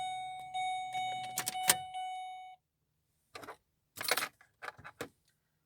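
Car's warning chime dinging over and over, about twice a second, then cutting off suddenly about two and a half seconds in. A few clicks and short rustling bursts follow, the loudest about four seconds in.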